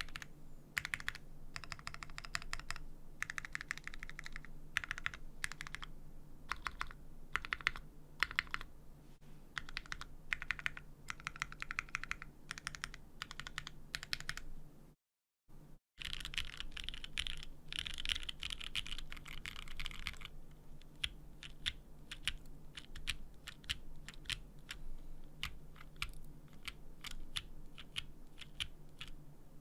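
Typing on a JJW Moment 60% keyboard fitted with Popu linear switches, GMK Shoko keycaps and a full polypropylene plate. A dense, continuous run of keystroke clacks stops dead for about a second midway, then resumes.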